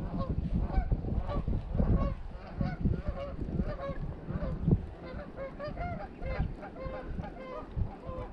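A flock of geese honking over and over, many short calls overlapping, with wind rumbling on the microphone underneath.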